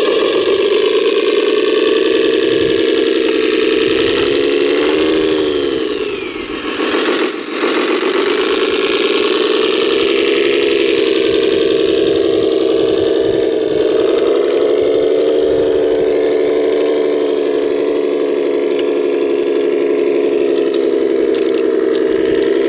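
RC construction vehicle running with a steady engine-like drone, its pitch dipping briefly about a quarter of the way in, then holding steady again.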